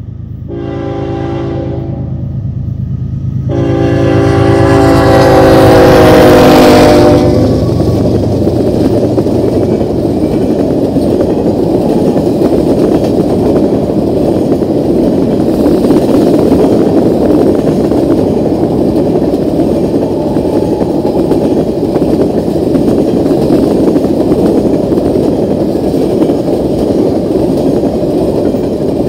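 Nathan K5HL five-chime horn on a GE ES44AC locomotive sounding a short blast, then a long blast held for about three and a half seconds as the locomotive passes over its diesel engine's rumble; this is the end of the grade-crossing horn signal. After that, a long string of tank cars rolls by with steady wheel-on-rail noise.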